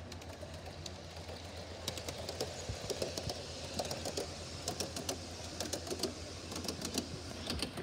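Large-scale garden model train passing close by, its wheels making a quick, uneven run of light clicks on the track that gets busier about two seconds in, over a steady low hum.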